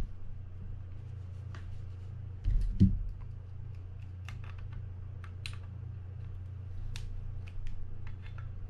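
Small metal parts of a Mitchell 300 spinning reel clicking and ticking as they are handled and fitted back into the rotor, with one louder thump about two and a half seconds in. A steady low hum lies under it all.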